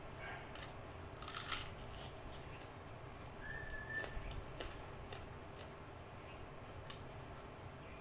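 A bite into a whole raw red onion, a crisp crunch about a second in, followed by quiet chewing with a few soft clicks. A brief high squeak comes near the middle.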